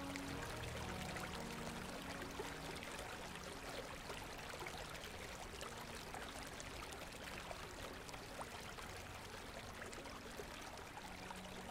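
River water running: a steady rush with many small splashes. Soft background music fades out over the first couple of seconds and comes back near the end.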